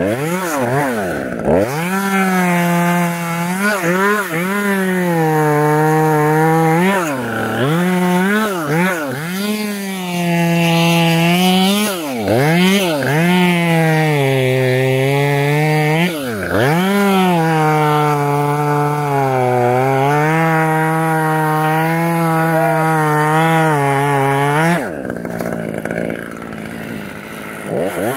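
Two-stroke chainsaw running at full throttle while cutting tree limbs, its pitch sagging under load during the cuts. The throttle is let off and squeezed again several times, and near the end the saw drops back to idle.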